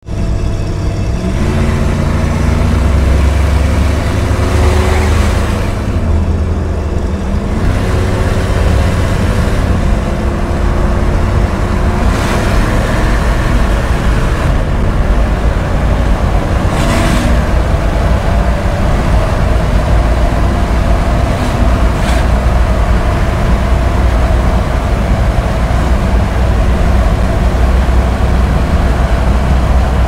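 Jeep Grand Cherokee 4.7 V8 engine pulling hard under acceleration at highway speed, heard from inside the cabin over a steady drone of road and wind noise. The engine note rises and dips a few times as the revs climb.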